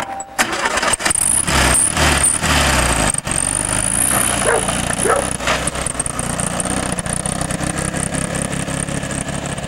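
Volkswagen Beetle's air-cooled flat-four engine revving as the car pulls away, then running steadily as it drives off and slowly fades, with a sharp knock just after the start.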